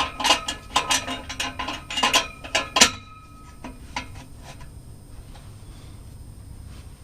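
Metal clinking and clicking as a U-bolt exhaust clamp and its nuts are fitted over a pipe joint, a quick run of sharp clinks for about three seconds, then only a few faint ticks.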